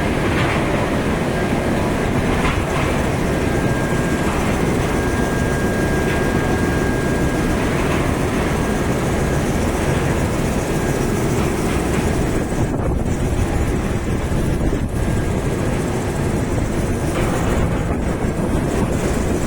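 Woodchip discharge conveyor machinery running steadily: a loud, dense mechanical rumble with a faint high steady whine that drops out briefly near the end.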